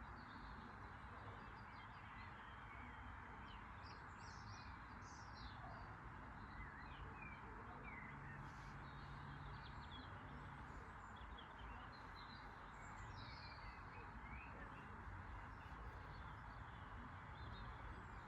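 Faint birds chirping and calling here and there over a steady background hiss.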